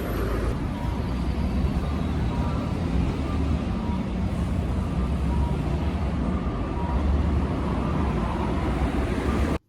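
Steady low rumble of vehicle road noise, as heard inside a moving car, cutting off abruptly near the end.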